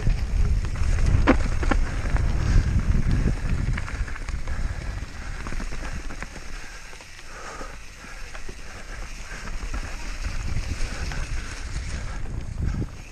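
Mountain bike descending a rough trail at speed: wind rumbling on the microphone, with scattered clicks and knocks from the bike rattling over the ground. The wind rumble is heaviest in the first few seconds and eases in the middle.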